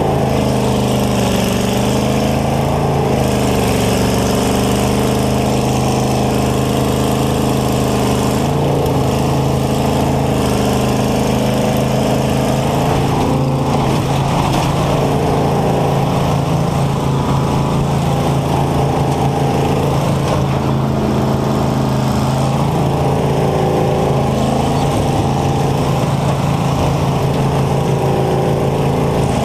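Combine harvester's engine running hard close to the cab, its pitch rising and falling as the throttle is worked. A single bang about halfway through marks a hit against another combine.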